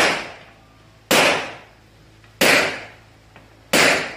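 Four pistol shots from a Rock Island Armory Tac Ultra FS HC, evenly spaced about a second and a quarter apart. Each shot sharply cuts in and rings out in the echo of an indoor range.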